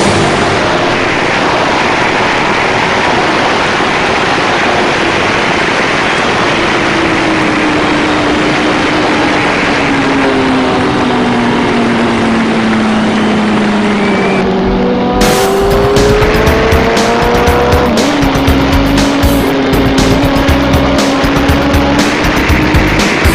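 Sport motorcycle engine running at speed under heavy wind rush, heard from the bike's own camera. The engine note sinks slowly for several seconds, then about two-thirds of the way through the sound turns abruptly louder and rougher, with a higher engine note and crackling wind buffeting.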